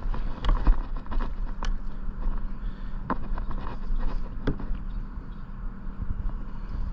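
A hooked bass being fought and reeled in from a boat: scattered clicks and knocks over a steady low hum and rumble of wind and water.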